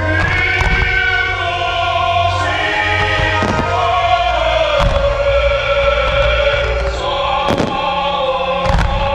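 Operatic choir music with sustained, slowly shifting held notes plays loudly over a fireworks display, with shell bursts cracking and booming through it several times.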